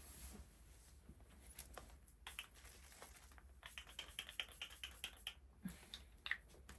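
Faint, scattered small clicks and taps, with a quicker run of light ticks in the middle.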